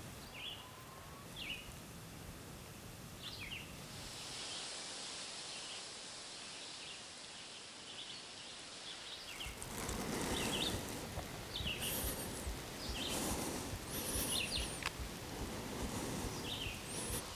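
Woodland ambience: small birds chirping in short calls every second or so, with a rustling of leaves that grows louder about ten seconds in.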